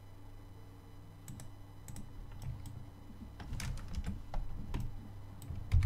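Computer keyboard keystrokes and mouse clicks, scattered at first and coming thicker about halfway through, with a heavier knock near the end, over a steady low hum.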